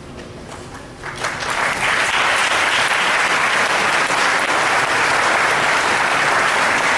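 Audience applauding at the end of a choir piece. A few first claps come about a second in and swell within another second into steady, full applause.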